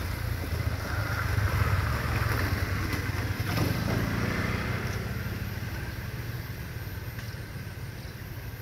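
Road traffic running past close by, a steady low hum of engines with a vehicle swelling past about four seconds in, then slowly fading away.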